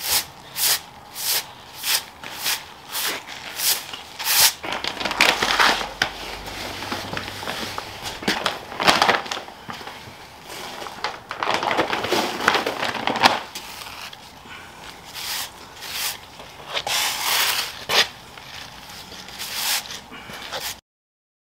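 Stiff bristle broom sweeping gritty, sandy jointing compound across porcelain patio slabs: short scraping strokes about two a second, with longer continuous sweeps in the middle. It cuts off suddenly near the end.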